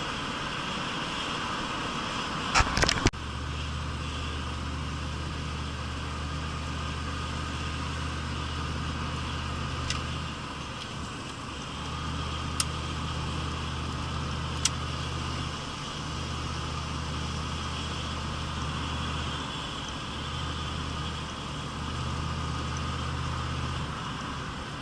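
Interior sound of a 1983 Pontiac Trans Am with its 305 small-block V8, cruising slowly in traffic. There is steady engine and road noise, and a low hum that drops out and comes back several times. A few sharp clicks sound, the loudest cluster about three seconds in.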